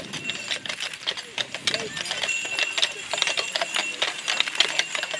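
Draft horses' hooves clip-clopping on a paved path, with their harness trace chains clinking as they walk, over background chatter of people walking alongside.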